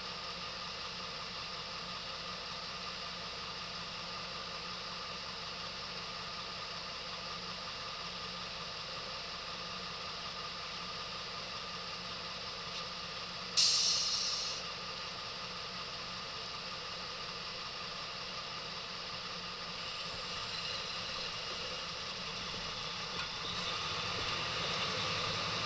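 Diesel engine idling steadily, with a short sharp hiss of released air about halfway through. In the last few seconds a second engine joins in and the sound grows louder.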